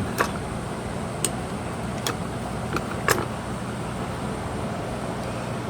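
Five short, sharp clicks and taps of tools and parts being handled while a starter motor is taken apart, the last the loudest, over a steady low rumble.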